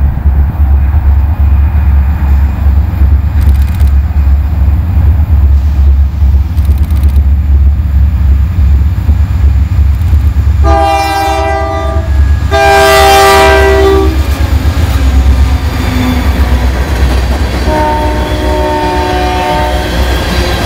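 Freight train's lead diesel locomotive sounding its multi-tone air horn as it approaches and passes: two blasts about halfway through, the second longer and louder, then a third, quieter blast near the end as the tank cars roll by. A steady low rumble runs underneath.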